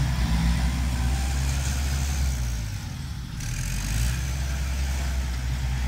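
Six-wheel dump truck's diesel engine running as the truck pulls away. It eases off briefly about halfway through, then pulls again.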